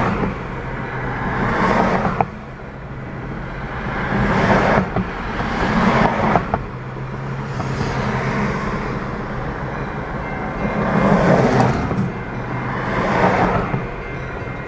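Road traffic passing one vehicle after another, each a rising and falling whoosh, over a steady low hum.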